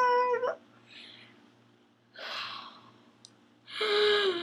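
A woman's high-pitched drawn-out vocal squeal cutting off about half a second in, then heavy breathing with a loud breath out, a small click, and another long wordless vocal sound falling in pitch near the end.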